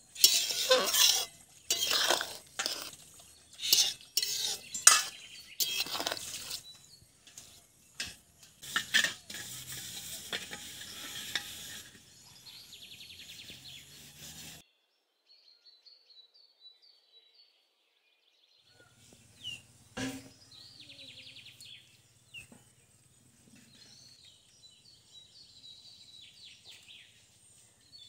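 Metal ladle clanking and scraping against an aluminium pot of bubbling curry, a quick run of strokes for the first twelve seconds or so. After that it is much quieter, with faint bird chirps and a single sharp knock about twenty seconds in.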